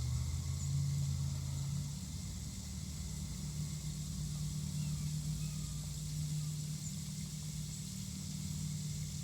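Steady low hum of an outdoor AC unit running, with a faint high hiss of sleet and ice pellets hitting the ground.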